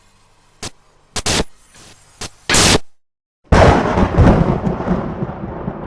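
Intro sound effects: a few short, sharp crack-like bursts, a brief silence, then about three and a half seconds in a loud thunder-like boom that rolls on and fades.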